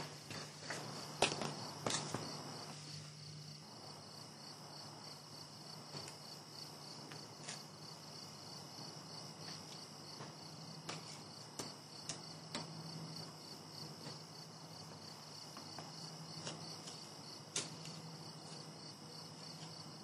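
Crickets chirping steadily in a faint night chorus, with a low steady hum underneath and a few faint clicks.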